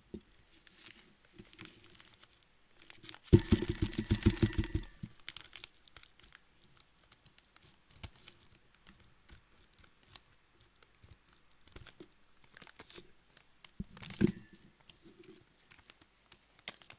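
A plastic Teeccino coffee bag being handled and cut open with scissors, crinkling. There is a loud ripping, crackling burst about three seconds in that lasts over a second, and a shorter one near the end.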